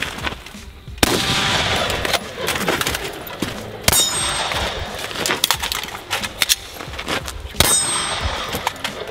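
Pistol shots fired in quick strings, the loudest about a second in, near four seconds and near seven and a half seconds, with a metallic ringing after some of them.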